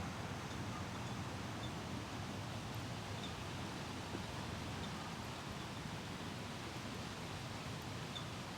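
Steady wind noise with leaves rustling, and a few faint high chirps.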